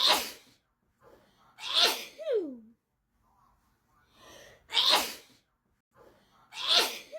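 A person sneezing in a fit: four sharp sneezes in two identical pairs about three seconds apart, the same bit repeating as a loop. Each pair starts with a short intake of breath, and the second sneeze of each pair trails off into a falling vocal sound.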